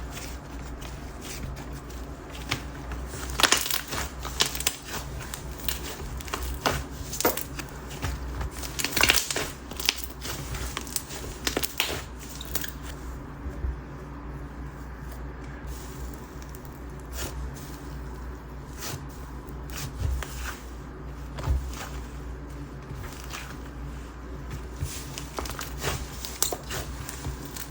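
Hands stretching, folding and poking a thick whip chew slime, giving irregular small crackles and pops, with fewer of them for a few seconds about halfway. The slime is a little dried out and more resistant than a fresh one.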